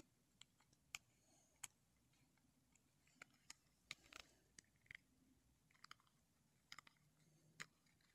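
Near silence with faint, irregular small clicks and taps, about fifteen of them, from fingers handling a pin and its cardboard backing card.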